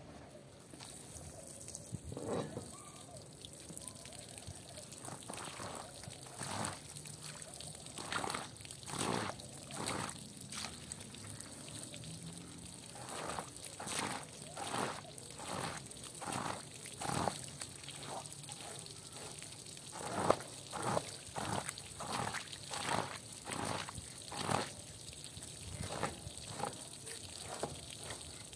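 A hose stream pours onto a soaked rug while a hand squeegee is dragged across the wet pile in repeated strokes, about one or two a second, squishing and sloshing the soapy water out of it.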